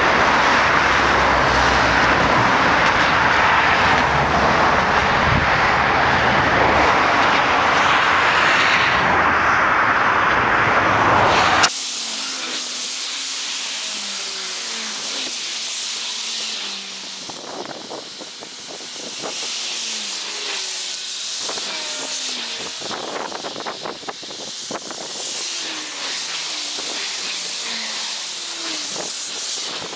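Strong wind buffeting the microphone: a loud, even rushing noise with a deep rumble beneath. It stops abruptly about twelve seconds in, giving way to a much quieter outdoor background with short, scattered chirps.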